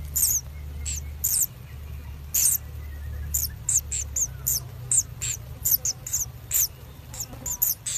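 Common kingfisher nestlings begging: rapid, irregular high-pitched squeaky chirps, each a short falling note, several a second.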